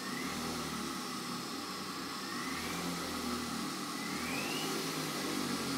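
3D-printed Halbach-array brushless motor spinning under an ESC: a steady whirring hiss, with a faint whine that rises in pitch three times as the speed is turned up.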